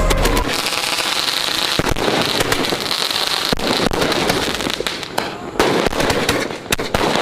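Firecrackers going off: dense, irregular crackling pops over a steady hiss, with a couple of brief lulls.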